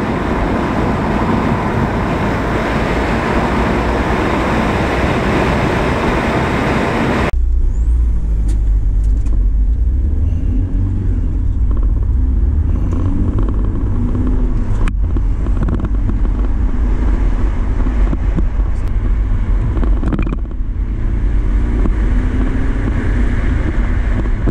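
Interior cabin noise of an Audi A4 TDI turbodiesel on the move: at first a steady hiss of road and wind noise, then, after a cut about seven seconds in, a deep low engine and road rumble with a faint engine drone over it. A single sharp click comes about halfway through.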